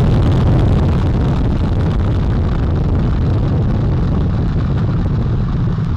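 Space Launch System rocket climbing just after liftoff, its four RS-25 core-stage engines and two solid rocket boosters firing together. The sound is a loud, steady, deep noise with no distinct tones.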